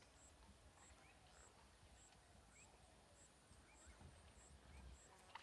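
Near silence: faint outdoor ambience with a few short, faint rising chirps and a faint high ticking that repeats about every half second.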